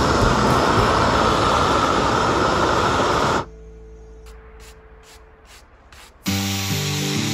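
Propane weed-burner torch running with a steady hiss as its flame scorches a pine carving, cutting off abruptly about three and a half seconds in. Background music comes in near the end.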